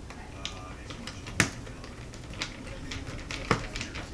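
Small Phillips screwdriver and tiny screws clicking and tapping against a multimeter's plastic case while the screws are set and driven in: a handful of sharp separate clicks, the loudest about a second and a half in.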